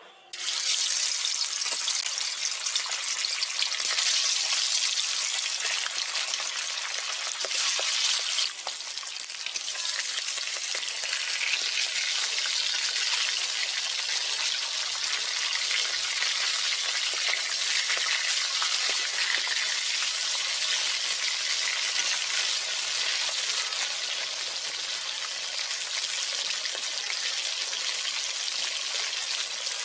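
Pieces of boal fish sizzling as they shallow-fry in hot mustard oil in an iron kadai. The sizzle starts suddenly as the fish goes into the oil and goes on as a dense, steady hiss.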